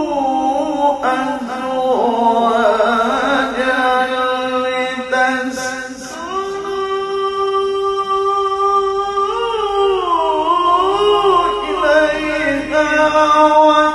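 A male qari reciting the Quran in melodic tilawah style, drawing out long ornamented notes: wavering, sliding runs, then a long steady held note in the middle, then a falling, wavering run.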